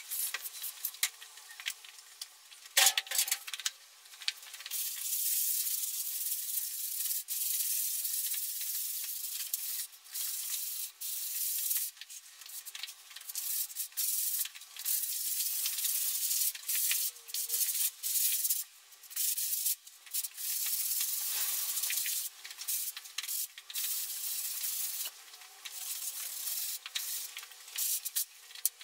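Hand-held polystyrene float rubbing over fresh plaster in repeated circular strokes, a scratchy hiss that comes in runs with short breaks. A single knock about three seconds in.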